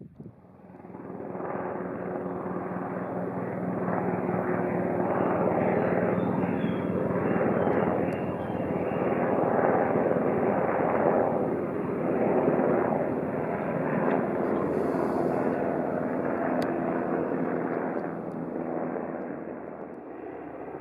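Electric train running past: motor and wheel noise with a steady hum, building over the first few seconds, holding, then easing off near the end.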